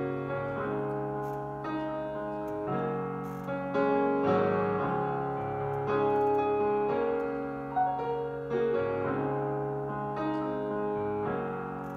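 Piano music: sustained chords struck anew every second or two.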